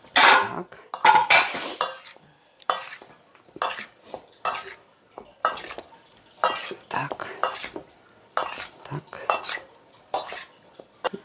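Metal spoon scraping and clinking against a stainless steel bowl while tossing raw chicken wings, in short strokes about once a second, loudest in the first two seconds.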